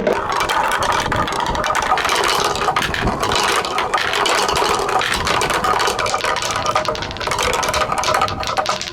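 Many marbles rolling and clattering down a marble run's slope course: a dense, continuous rattle of small clicks and knocks.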